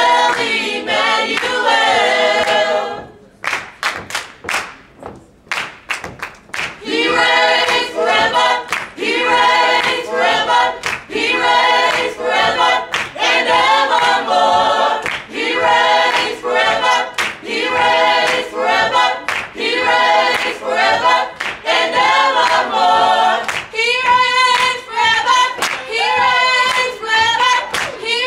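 Small mixed-voice a cappella gospel group singing a praise song in harmony over steady handclaps. About three seconds in the voices stop for a few seconds, leaving only the clapping, then the singing comes back in.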